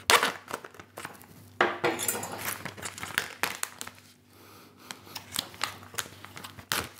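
Knife stabbing through the plastic film lid of a plastic food tray, then the film and tray crinkling and crackling as they are worked open by hand, in irregular clicks and crackles. The loudest click comes right at the start.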